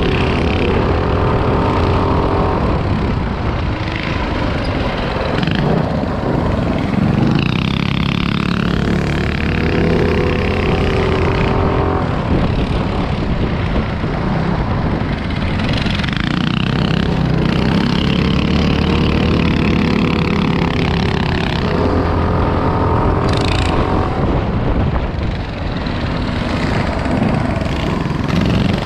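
Small single-cylinder minibike engine running at race pace, its revs climbing and dropping every few seconds as the throttle is opened and eased, over a steady rushing noise.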